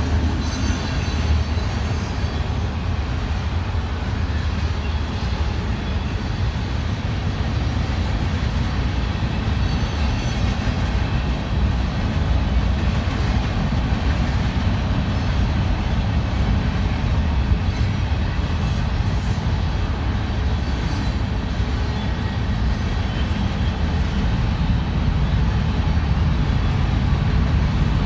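Freight cars of a Union Pacific manifest train rolling past: a steady rumble of wheels on rail, with a few faint high clicks.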